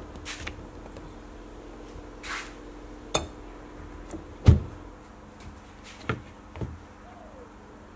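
Gloved hands handling a wooden plane handle inside a sandblast cabinet: several knocks against the cabinet and its mesh grate, one heavy thump about halfway, over a steady low hum.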